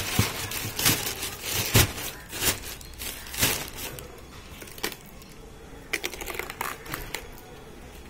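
Thin plastic bag crinkling and rustling as it is handled: irregular crackles, dense in the first few seconds and sparser after.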